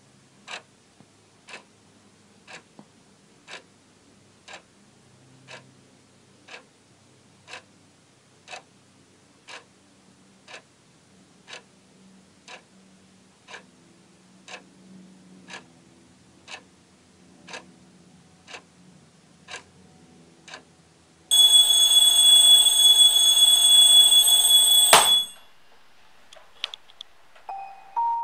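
Q&Q quartz analog alarm clock ticking once a second, then its alarm ringing loudly for about four seconds before cutting off suddenly.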